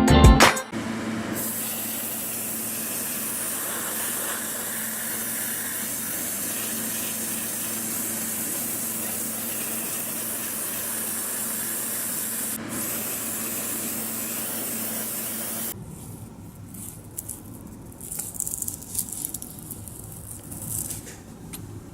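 Steady hiss of paint being sprayed, running for about fifteen seconds and then stopping abruptly, followed by quieter irregular handling noises.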